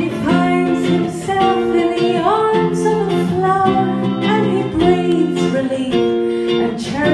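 A woman singing over an electric guitar played live, her voice holding long notes that slide from one pitch to the next.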